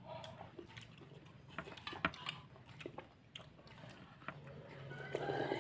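Close-up chewing and mouth sounds of people eating fried noodles and fritters, with scattered small clicks. Near the end a rooster starts to crow.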